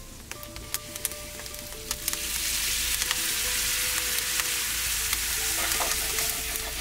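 Beef stock poured into a hot cast iron skillet with butter, shallots and green peppercorns, hitting the pan with a loud sizzle that swells about two seconds in and keeps going. A few scattered crackles come before it.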